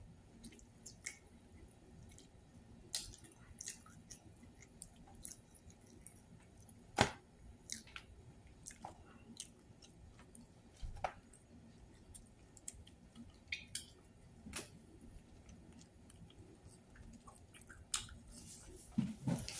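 A person chewing fried food at close range, with wet mouth sounds and scattered small clicks and taps; the sharpest is a single knock about seven seconds in.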